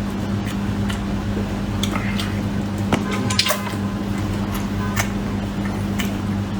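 Close-miked chewing and mouth smacking while eating braised beef ribs: wet, squishy clicks scattered irregularly, over a steady low hum.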